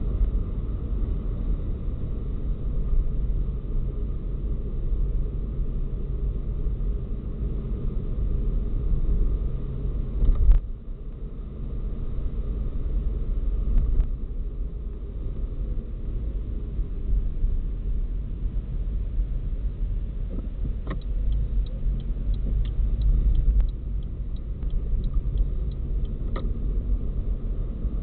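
Car driving, picked up by a dashcam's microphone inside the cabin: a steady low rumble of engine and road noise. A single thump about ten seconds in is followed by a brief dip in the rumble, and later a run of light, evenly spaced ticks lasts about five seconds.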